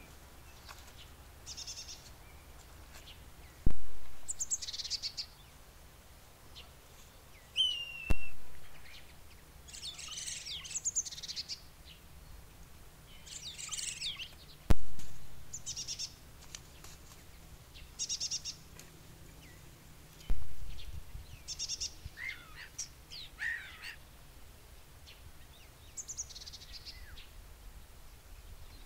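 Songbirds chirping in short, high calls, some gliding in pitch, repeated every second or two. Four sharp snaps or clicks, the loudest sounds, come several seconds apart.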